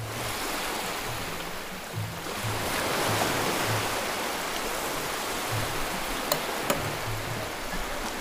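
Steady rushing background noise with faint music underneath, its low beat pulsing about twice a second. Two light clicks come close together about six seconds in.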